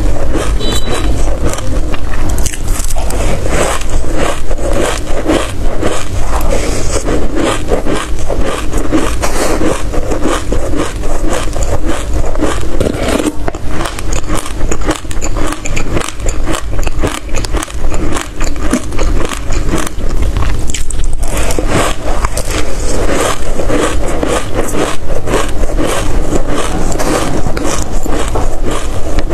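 Close-miked chewing and crunching of a mouthful of dry black seeds, mixed with a scoop scraping through the heaped seeds in a metal tray: a dense, continuous run of small crackles and scrapes, with a brief lull about twenty seconds in.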